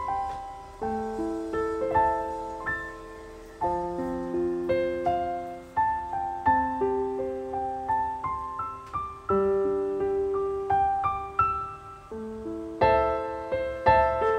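Background piano music: a slow melody over chords, each struck note fading away before the next.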